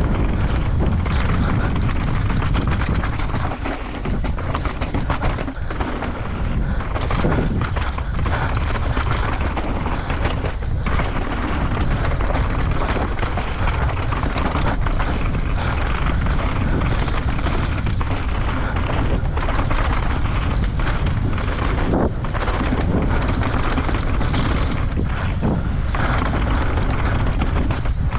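Downhill mountain bike run at speed on a dry, rough trail: heavy wind rumble on the rider's camera, with the bike clattering and knocking over the ground.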